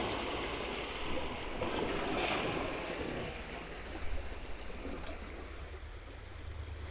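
Sea waves washing onto a beach, one surge swelling about two seconds in and then easing, with a low wind rumble on the microphone.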